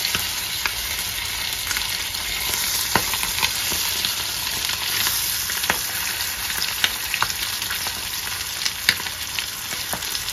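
Butter sizzling around a stingray fillet shallow-frying in a non-stick frying pan: a steady high hiss dotted with scattered sharp crackles and pops.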